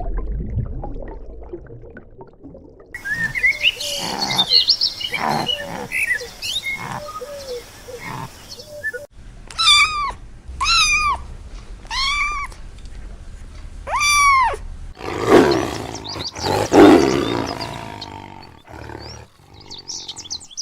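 A run of different animal calls cut one after another: low rumbling sounds, then squeaks and chirps, then four arching high calls about a second apart, then rough, low roar-like calls.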